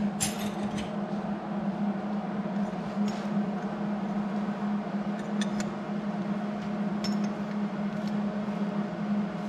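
Scattered light metallic clinks of hand tools on the nut welded onto a broken bolt, as it is worked loose, over a steady mechanical hum.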